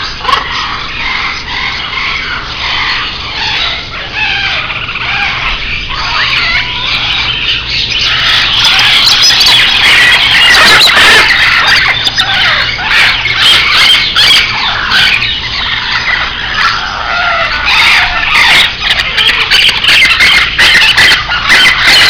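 Many caged parrots and small birds calling at once: a dense, loud chatter of high-pitched calls with no pause, which grows louder about eight seconds in.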